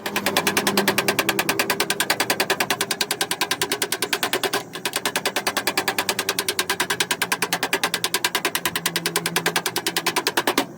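Rapid, evenly spaced hammer strikes on a sheet-metal car fender, about ten a second, with a brief pause about four and a half seconds in.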